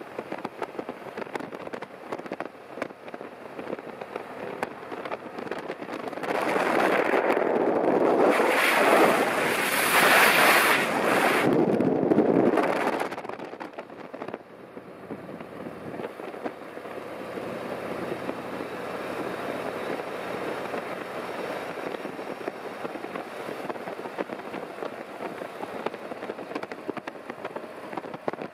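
Riding on a Harley-Davidson Road Glide: wind rushing over the microphone, with the bike's Milwaukee-Eight 117 V-twin running underneath. About six seconds in the wind noise swells much louder for about seven seconds, then settles back to a steady rush.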